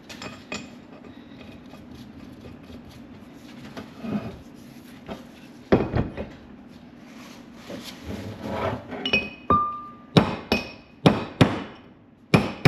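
Hammer blows on metal driving the old outer wheel-bearing race out of a 1985 Chevy C10 front hub: a few scattered strikes, then a quicker run of ringing blows, about two a second, near the end.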